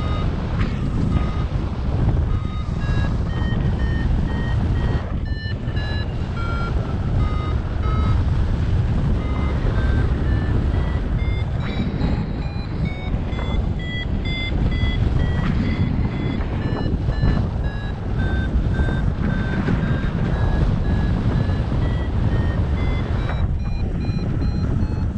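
Paragliding variometer beeping in short tones in quick succession, its pitch stepping up and down, the tone a vario gives while the glider climbs in lift. Heavy wind rush on the microphone runs underneath.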